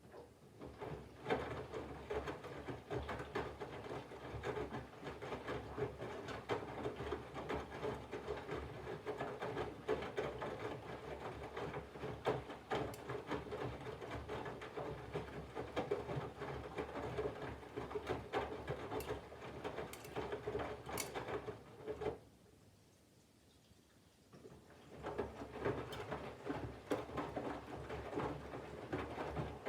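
Candy GVF4 137 LWHC/2 front-loading washing machine in its main wash: the drum turns with a steady motor hum while the laundry and water slosh and patter. The drum stops about 22 seconds in and starts turning again about three seconds later.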